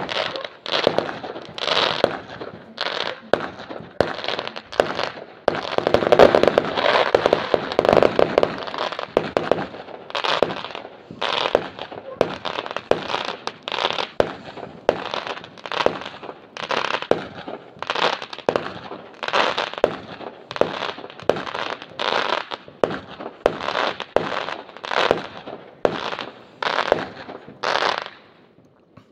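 Aerial fireworks shells bursting one after another, about one or two a second, each burst followed by the crackle of glittering stars. The bursts come thickest a few seconds in, and the run stops shortly before the end.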